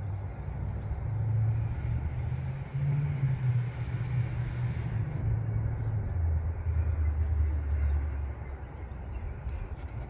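Motor oil pouring steadily from a plastic jug into a funnel in the engine's oil fill, over a low rumble that drifts in pitch.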